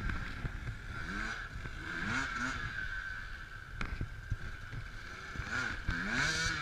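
Enduro dirt bike engine revving up and falling back as the rider blips the throttle on a rocky climb, with a sharp knock just before four seconds in.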